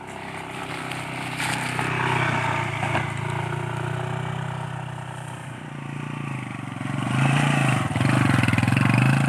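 Motorcycle engine running under load, its pitch wavering up and down as the throttle is worked, getting louder in the second half.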